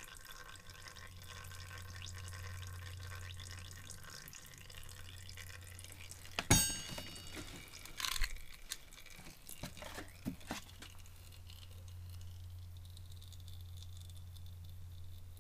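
Motor oil trickling and dripping as a Ratio Rite measuring cup is filled from a jug while transmission oil drains into a pan, over a steady low hum. A sharp clink with a brief ring comes about six and a half seconds in, followed by a few lighter knocks.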